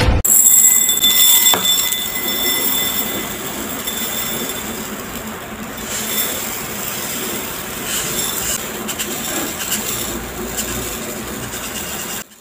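Dry, uncooked Dinurado white rice grains pouring in a continuous stream into a glass bowl: a steady hissing patter of grains that stops suddenly near the end.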